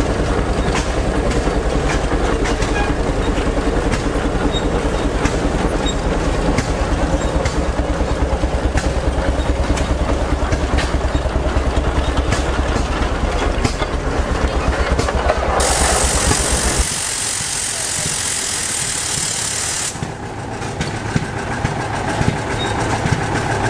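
A large antique engine running with a rapid, steady low beat; about 15 seconds in a loud hiss starts and lasts about four seconds, and the engine's low beat drops away shortly after the hiss begins.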